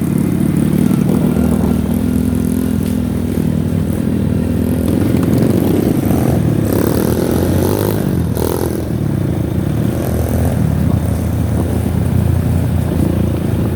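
Motorcycle engine running under way while riding, its pitch rising and falling several times with the throttle and gear changes.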